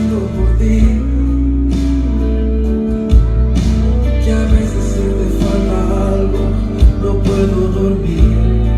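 A slow ballad dedicated to a father and daughter playing loud over a sound system, with guitar and a steady bass line and some singing.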